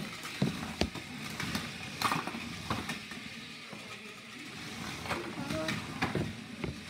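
HEXBUG BattleBots remote-control toy robots driving in a plastic arena: small electric motors whirring, with irregular plastic clacks and knocks as the bots hit each other and the clear arena walls.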